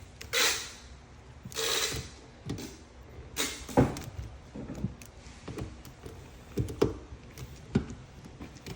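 Hand work on an automatic door operator arm while its Allen bolt is loosened: two short scraping rasps in the first two seconds, then scattered metallic clicks and knocks.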